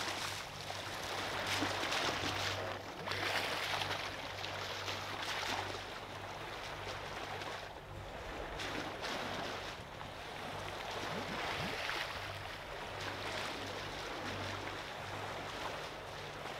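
Water rushing and splashing past the bow of a catamaran under way, rising and falling, with a steady low hum underneath.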